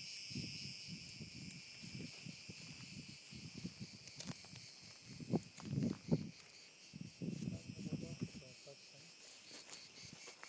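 A steady, shrill insect chorus with a slight pulsing, from the sunlit grove and trees. Irregular low thumps and rustles come from close by, loudest about five to six seconds in.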